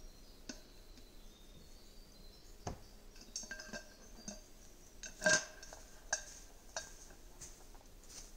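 8-litre steel MenGrills pressure cooker clinking and clanking as it is lifted and carried, a scatter of light metallic knocks with a louder ringing clank about five seconds in.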